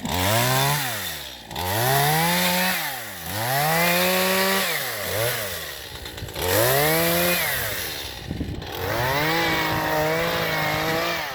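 Chainsaw engine revved up and let back down about five times. The last rev is held for about two seconds with a wavering pitch before it falls away.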